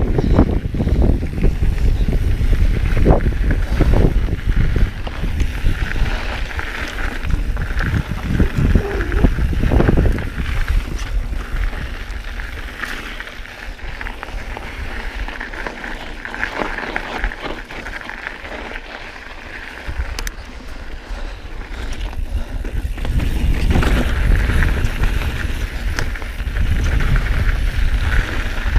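Mountain bike ridden over a rough dirt trail: tyre noise and the bike's knocks and rattles over bumps, with wind rumbling on the camera microphone. It is rougher and louder for the first ten seconds, eases through the middle, and picks up again near the end.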